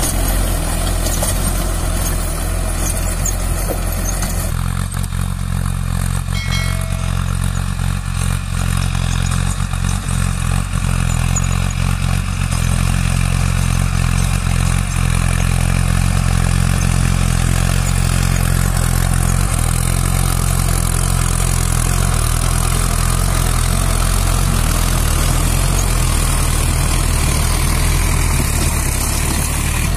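Mahindra Arjun Ultra-1 555 DI tractor's four-cylinder diesel engine running steadily under load while its rotavator tills the soil. The engine note changes abruptly about four seconds in.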